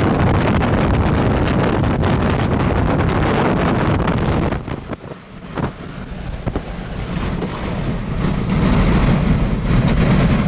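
Strong tornado wind buffeting the microphone: a loud, steady rushing noise. It drops away for a moment about halfway through, then builds back up.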